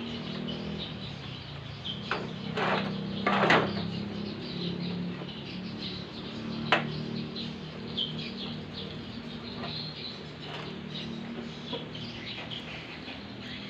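Birds chirping over a low steady hum, with a few sharp knocks; the loudest come about three and a half seconds in and again near seven seconds.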